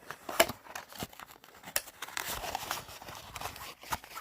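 Packaging crinkling and rustling as it is handled, with a few sharp clicks, the loudest a little under half a second in.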